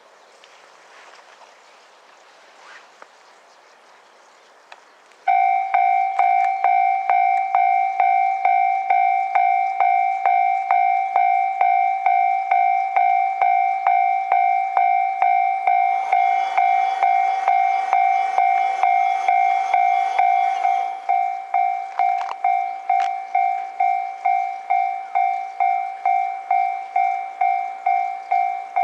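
Railway level crossing warning bell that starts suddenly about five seconds in and rings steadily at about two dings a second. A train passes partway through, its running noise rising under the bell for several seconds.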